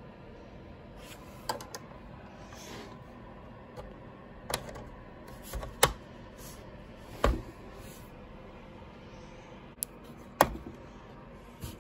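Hard plastic clicks and knocks as a Bruder toy Mercedes-Benz Sprinter van is handled and a black plastic part is pressed onto its front grille. About six separate sharp clicks, spread out, the loudest about six seconds in and again near ten seconds.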